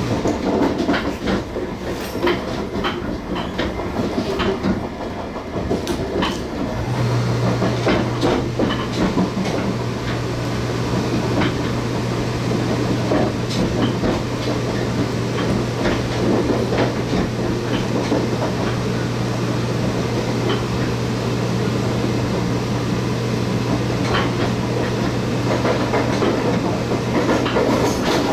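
Running noise inside a TEMU1000 Taroko Express tilting electric multiple unit in motion: a steady rumble of wheels on rail with a low hum that grows stronger about seven seconds in. Scattered clacks come from the wheels over the track.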